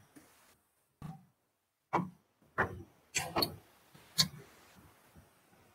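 A stylus tapping and clicking against a pen tablet while handwriting: about six short, sharp clicks at irregular spacing, starting about a second in.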